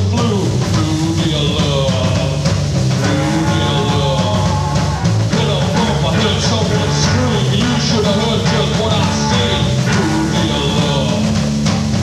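Live blues-rock trio playing an instrumental passage: electric slide guitar with gliding notes over bass guitar and drums.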